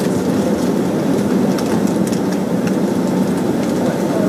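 Cabin noise inside a Boeing 767-300ER taxiing: the engines at taxi power and the cabin air make a steady low drone, with a few faint ticks.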